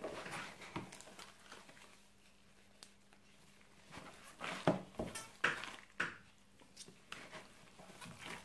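A gloved hand kneading and squeezing raw ground pork mixed with shredded cabbage and cooked rice in a plastic bowl, giving an irregular run of soft squelches that grow louder about halfway through.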